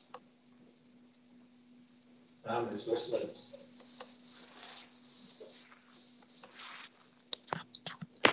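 A high-pitched chirping tone, about three short chirps a second, that becomes one loud steady whistle about two and a half seconds in and stops near the end, followed by a few sharp clicks. A faint low hum runs underneath.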